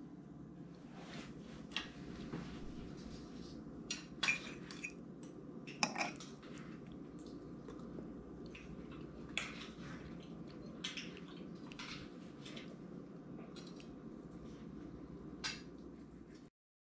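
Dishes being handled: scattered light clinks and clatters of a dinner plate and its clear cover, over a steady low hum. The sound cuts off abruptly near the end.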